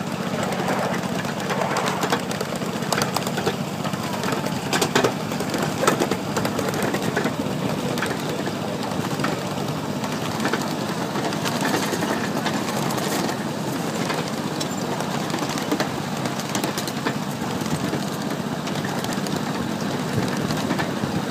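Ride-on miniature train running along its track: a steady hum with scattered clicks and clatter from the cars rolling over the rails.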